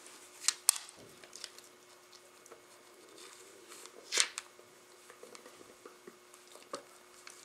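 Labradors and a Rottweiler puppy play-fighting, mouthing and biting at each other: scattered sharp clicks and scuffles, with one louder breathy burst about four seconds in.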